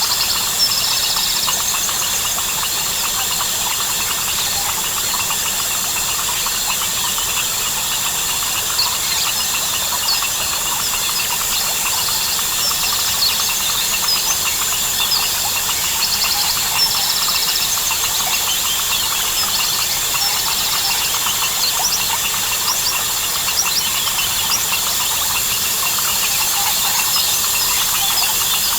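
Dense chorus of crickets, frogs and birds: a steady high-pitched insect drone with many short chirps, calls and quick trills over it.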